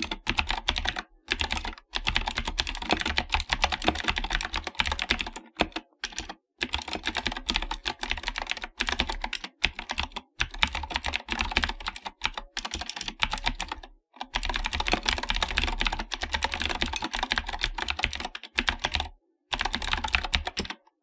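Fast, continuous typing on an AKKO 3084 mechanical keyboard with Akko custom blue switches, a clicky Cherry-blue type. The rapid key clicks are broken by a few brief pauses and stop just before the end.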